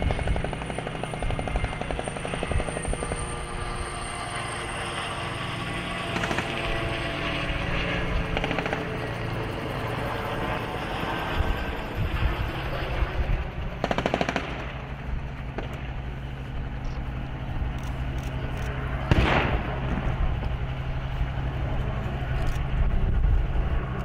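Tracked armoured vehicles' engines running steadily, with gunfire going off throughout and two louder blasts a few seconds apart in the second half.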